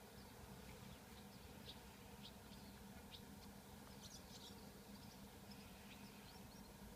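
Near silence with faint, short high chirps scattered throughout, several close together about four seconds in, over a low steady hum.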